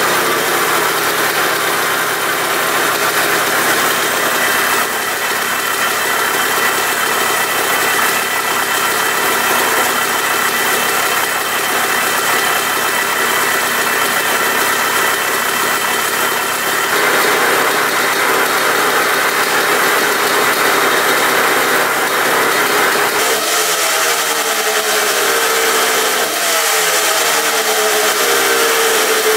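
1980 Suzuki RM125's single-cylinder two-stroke engine running on the stand, with a loud silencer and a somewhat noisy top end. In the last several seconds it is revved up and down a few times.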